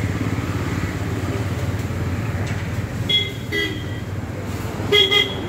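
Road traffic: a steady engine rumble with vehicle horns honking, two short toots about three seconds in and a louder double toot near the end.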